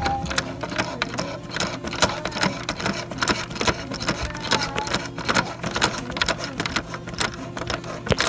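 Rapid, irregular clicking and ticking of a screwdriver driving screws into a plastic tower fan's housing, several clicks a second, over a faint steady hum.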